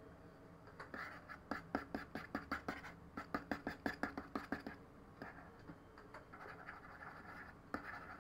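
Faint computer mouse clicking in a quick run, about four clicks a second, with scratchy rubbing between the clicks.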